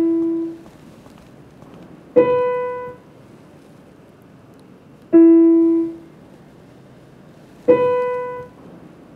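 Slow single piano notes: four separate notes struck about two and a half seconds apart, each fading within about a second, alternating between a lower and a higher pitch.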